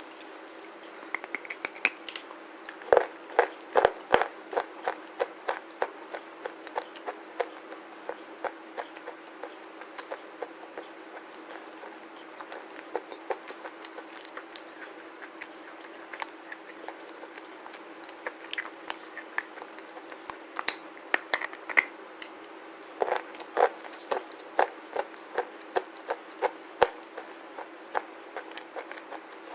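Close-miked chewing of a hard black slate or clay bar: irregular runs of sharp, brittle crunches, with the busiest bursts a few seconds in and again past the middle, and quieter gaps between.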